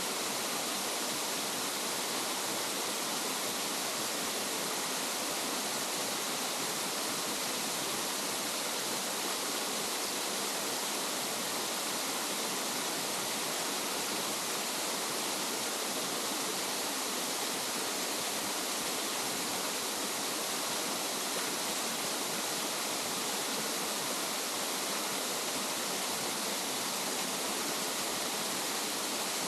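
Waterfall: a steady, unchanging rush of falling water, strongest in the hiss.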